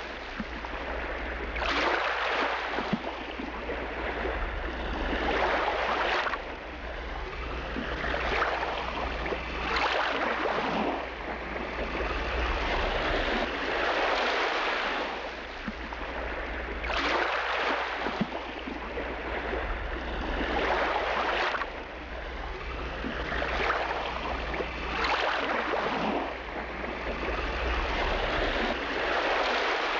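Sea surf: waves washing in and drawing back, a hiss that swells and fades every few seconds over a steady low rumble.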